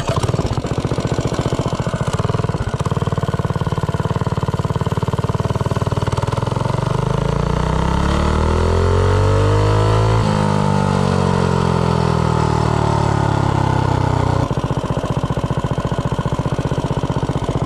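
Modified Predator 212 single-cylinder four-stroke minibike engine (billet rod and flywheel, 252 cam, slide carburettor, header pipe) idling, then revving up in a rising pitch for about three seconds. About ten seconds in the revs drop off sharply and wind down in a falling pitch as the bike slows, settling back to a steady idle near the end.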